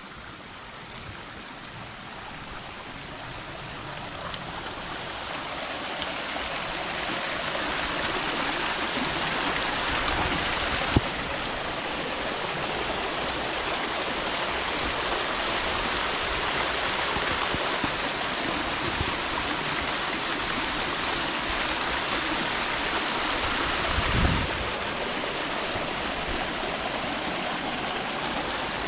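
Creek waterfall rushing steadily in a deep gorge, growing louder over the first several seconds and then holding even. A single sharp click comes about eleven seconds in, and a low bump near the end.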